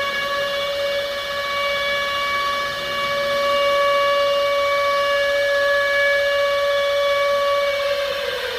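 Civil defense siren sounding one long held tone, then starting to wind down in pitch near the end.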